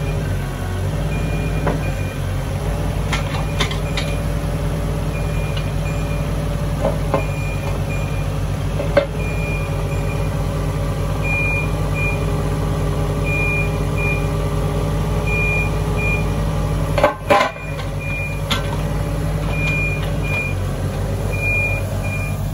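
Volvo EC18D mini excavator's diesel engine running steadily under load, with a hydraulic whine that shifts as the boom, arm and tracks are worked. Short high beeps sound on and off throughout, and there are a few clunks, the loudest two close together about 17 seconds in.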